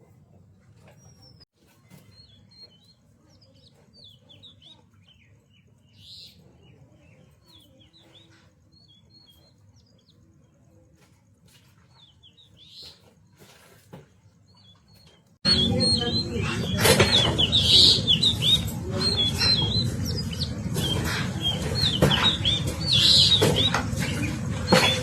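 Small birds chirping, faint at first; about two-thirds through, the sound jumps suddenly much louder, with many chirps over a dense background noise.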